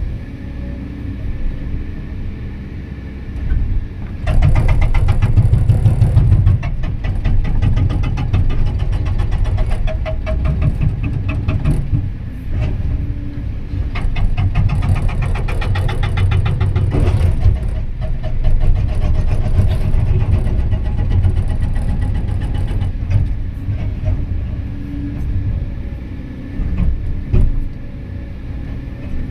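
Excavator engine running, then a hydraulic rock breaker hammering with rapid, even blows from about four seconds in, stopping near the end.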